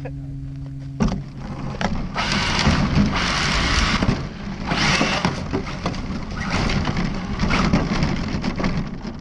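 ARRMA Felony 1/7-scale RC car driving on gravel, its tyres crunching and spraying loose stones with a crackling clatter. The sound starts about a second in and rises in several surges.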